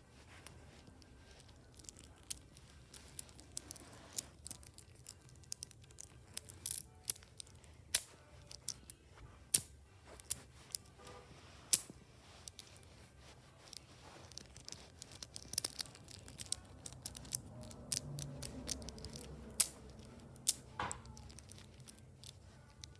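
Small craft materials handled by hand: scattered sharp clicks and snaps at irregular intervals over faint rustling.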